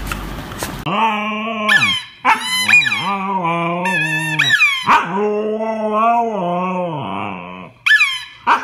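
Siberian husky "talking": long, wavering, moaning calls that rise and fall in pitch, starting about a second in, with a few short high squeals among them.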